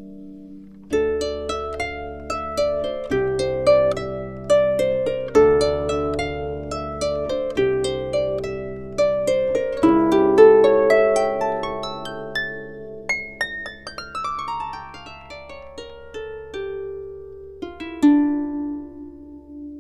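Background music: an instrumental passage of plucked harp-like notes over sustained bass notes.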